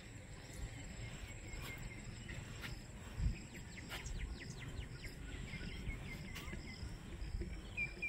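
Outdoor rural evening ambience: birds chirping in short repeated runs with a few quick falling notes, over a steady high insect drone and a low rumble. A dull thump about three seconds in.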